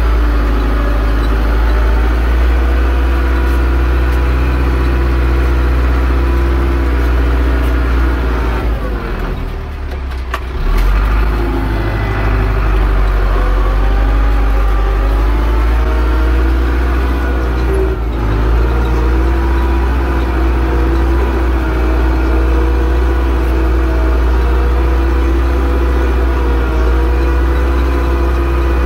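Zetor 6245 tractor's diesel engine running steadily under load while pulling a plow. The sound dips briefly about nine seconds in, then comes back at full strength.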